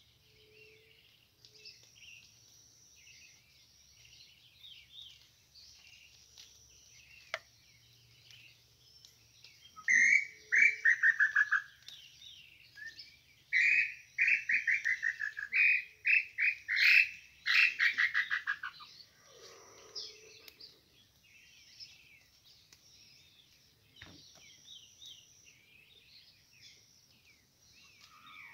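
Loud whistled tinamou (nambu) song, in several runs of notes that fall in pitch and speed up, from about a third of the way in to past the middle. Under it, a steady chorus of small birds chirping.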